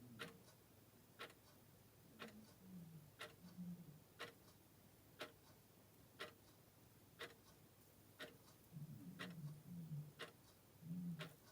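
Vintage clock ticking softly and evenly, about one tick a second.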